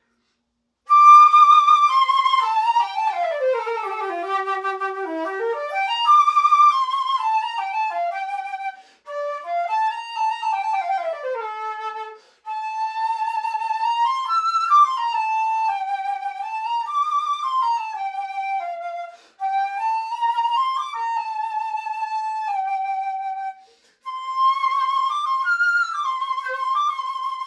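Concert flute played solo, a melody in several phrases with short breaks for breath, dipping to low notes early on and otherwise moving mostly in the middle register.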